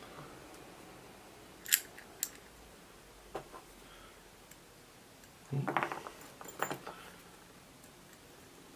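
Light clicks and clatters of small parts being handled as a thermal camera's housing, back plate and screws are fitted together: two sharp clicks, a faint tap, then a short run of clatters about six seconds in.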